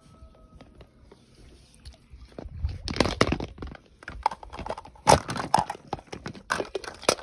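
A large hollow plastic toy egg being handled and its two halves worked apart: clusters of sharp plastic clicks and knocks starting about two and a half seconds in, with the loudest around the middle and near the end.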